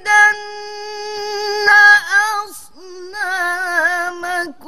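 A woman reciting the Quran in the melodic tarannum style, drawing one word out over long held notes. A long steady note gives way to a short ornamented turn about two seconds in. After a brief break, a slightly lower note is held with a wavering ornament through most of the rest.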